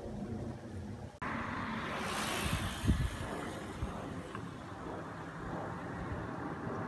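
A car driving away along a wet country lane, engine and tyre noise starting abruptly about a second in, with a low thump near the middle.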